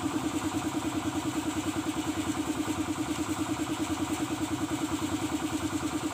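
A small engine idling steadily, with an even pulse of about eight or nine beats a second.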